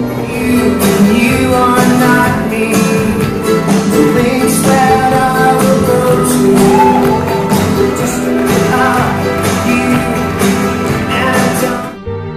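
Music with a steady beat and a voice singing, cutting off abruptly near the end.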